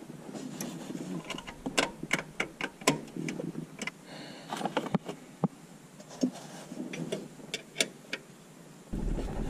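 Irregular sharp metallic clicks and taps of a small wrench on the brake line fittings of the master cylinder as they are fitted and tightened.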